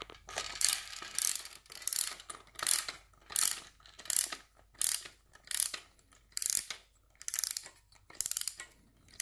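Clock mainspring being wound with a brass clock key: the ratchet clicks rapidly in short bursts, one with each twist of the key, about once a second.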